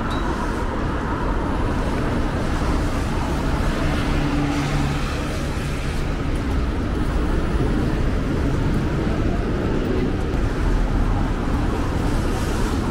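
Steady city street traffic noise, with a low engine hum swelling briefly about four seconds in.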